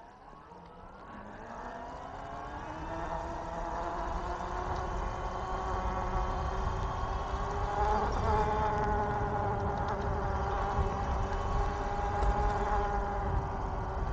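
E-bike's electric motor whining, rising in pitch over the first few seconds as the bike speeds up, then holding a steady pitch, with a small dip about eight seconds in. A low wind rumble runs underneath.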